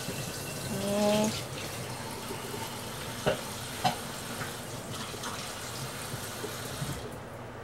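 Kitchen tap running into a sink while dishes are washed, with two sharp clinks of crockery and a brief pitched tone about a second in. The running water stops near the end.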